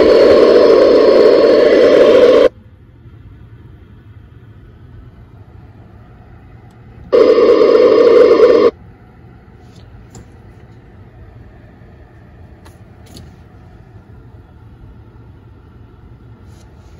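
Icom mobile transceiver's speaker hissing with FM noise on the 10 m band as radio interference from the hybrid car's electronics opens the squelch. The loud hiss cuts off suddenly about two and a half seconds in, comes back for about a second and a half around seven seconds in, and cuts off again, leaving only a faint low background.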